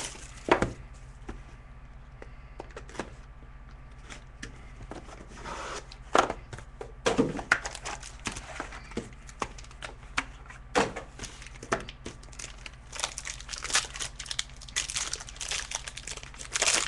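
Packaging of a sealed box of hockey cards being opened: plastic wrap crinkling and tearing, with scattered sharp clicks and taps of cardboard being handled. The crinkling grows denser in the last few seconds.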